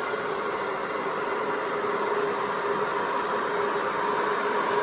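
Hair dryer blowing steadily: a constant motor hum under a hiss of rushing air, used to push paint across a Dutch pour.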